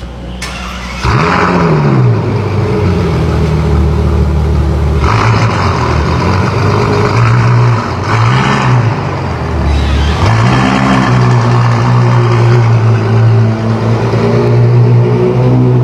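Ferrari F12berlinetta's 6.3-litre V12 with a very loud exhaust fires up about a second in with a rev flare that rises and falls. It settles briefly, then is blipped a couple of times and held at raised revs to the end.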